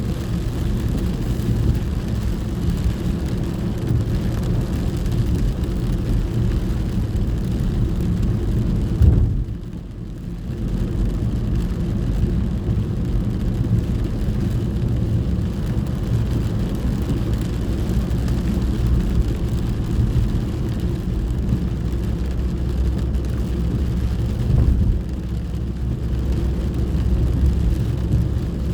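Inside a moving car in the rain: a steady low road-and-engine rumble with a fainter hiss of rain and wet tyres. About nine seconds in there is a brief thump, then the sound drops for about a second before returning.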